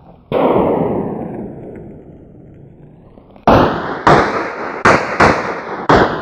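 Pistol shots on a practical shooting range: one shot, then after about three seconds five more in quick succession, each with a long echoing tail.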